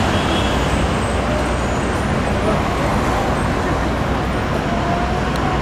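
Steady city street traffic noise: a dense mix of vehicle engines running, with no siren sounding.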